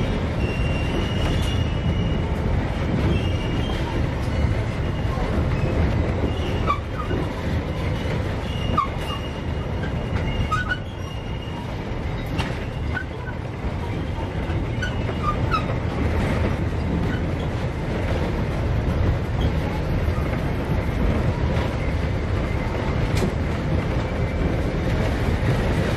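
Narrow-gauge heritage train running on its track: a steady low rumble of wheels and carriages, with occasional brief high wheel squeals and clicks.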